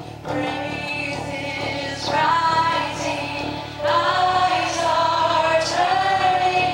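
Live worship band playing a slow song: a woman sings the lead in phrases with long held notes, over acoustic guitar, bass and keyboard.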